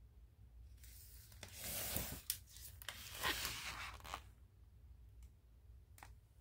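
A picture book's paper page being turned: a rustling swish lasting about three seconds, starting about a second in, followed by a few faint clicks of the book being handled.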